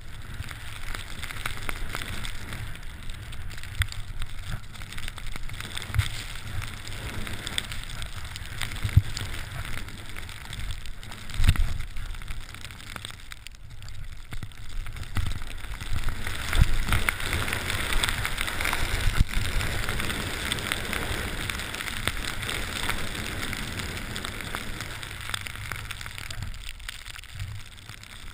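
Skis hissing through deep powder snow on a steady downhill run, with wind rumbling on the microphone and the odd low thump from the bumps of the descent.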